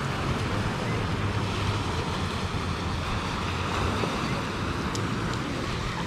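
Small waves breaking and washing steadily over a pebble shore, with some wind on the microphone adding a low rumble.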